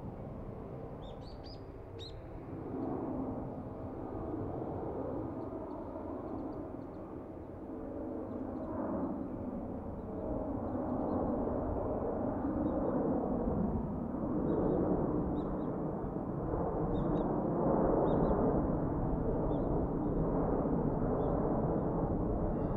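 Boeing 747-400's four General Electric CF6-80C2 turbofans at climb power just after takeoff: a broad jet rumble that grows steadily louder. Faint small bird chirps come through now and then, most clearly about a second in.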